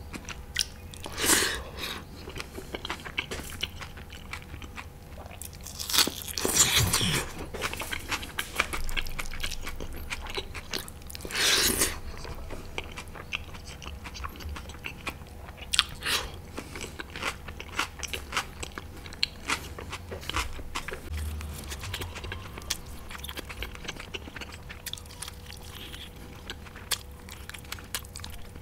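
A person eating, close to the microphone: repeated biting and chewing with crunchy bites, the loudest bites coming about 1, 6 to 7, 11 and 16 seconds in.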